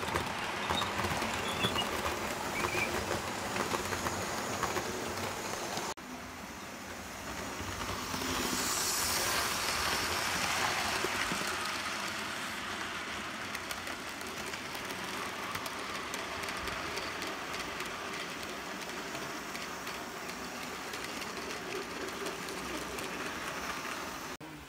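Model trains running on a layout's track: a steady rattle of small wheels on rails. The sound drops abruptly about six seconds in, then swells as a train passes close around nine to eleven seconds and slowly fades.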